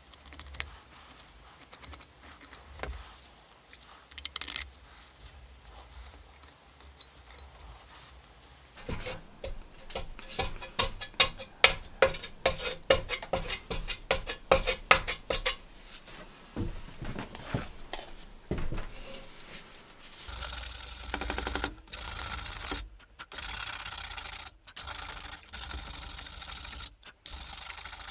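Faint handling clicks, then a spreader rapidly scraping metal filler onto a metal helmet from about nine seconds in. From about twenty seconds in, hand sanding with sandpaper on a block takes over: steady rubbing strokes over the metal, broken by a few short pauses.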